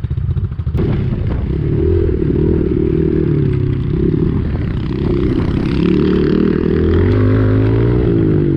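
Pit bike engine running under way, revs rising and falling as it is ridden, with some clatter.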